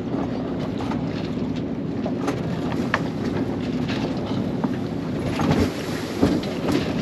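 Sailboat under way: water rushing along the hull and wind buffeting the microphone, with scattered small clicks and knocks. There are a couple of louder low bumps about five and a half and six seconds in.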